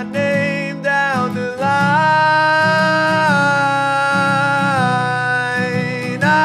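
Song: a singer's voice sings a few short notes, then holds one long wordless note that steps slightly down in pitch, over a plucked guitar accompaniment.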